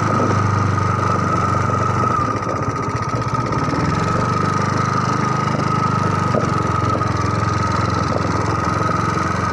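Small motorbike engine running steadily, with a steady high whine above it.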